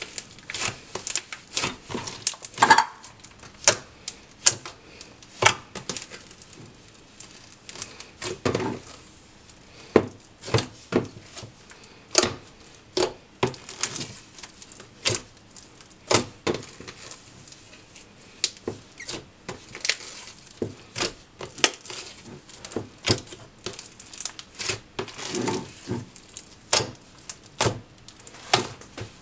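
Hands kneading and squeezing a big mass of mixed slimes, giving irregular sticky clicks and pops, a few each second, with softer squelches between them.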